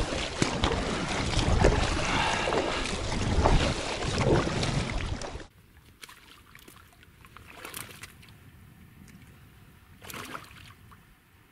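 Paddle strokes and water splashing around an inflatable kayak being paddled, loud and close. About five and a half seconds in it cuts off suddenly to a much quieter outdoor background with a couple of brief soft sounds.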